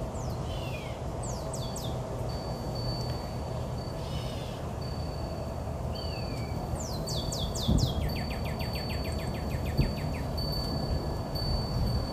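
Birds calling: a string of quick downward-sweeping chirps and, about two-thirds of the way in, a fast trill. Behind them a steady high ringing tone stops and starts over a low rumble, with two brief low thumps in the second half.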